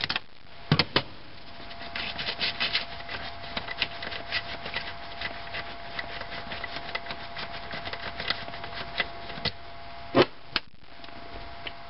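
Socket ratchet clicking in quick irregular runs as it backs out the rear mounting bolt of the brake master cylinder, with a few louder metal knocks about a second in and again near the end.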